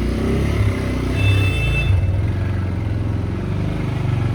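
Motorcycle engine running steadily while being ridden, just back from repair. A short high beep sounds about a second in.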